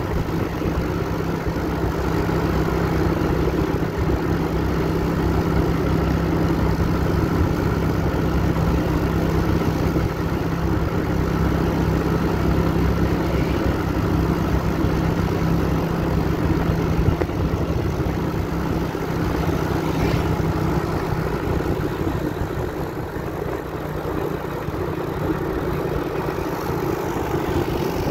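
A vehicle engine running steadily on the move, with a steady rushing noise over it. Its low steady tone fades out about two-thirds of the way through.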